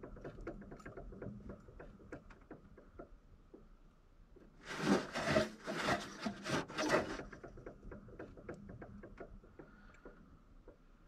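Water pump pulley on a 6.0 Powerstroke diesel spun by hand with the belt off, whirring with a light ticking, louder for a couple of seconds about halfway through. The bearing has no play, and the noise is taken for the fan catching on something a little rather than a worn bearing.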